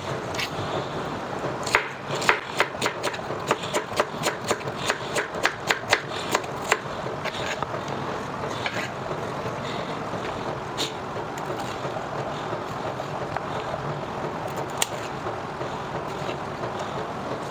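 Chef's knife chopping celery on a cutting board: a quick run of knife strikes, about four a second, for about five seconds. Then the blade scrapes across the board and there are a few scattered knife taps, over a steady background noise.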